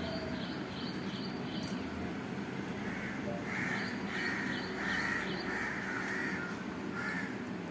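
Crows cawing, a run of about six short, repeated caws near the middle.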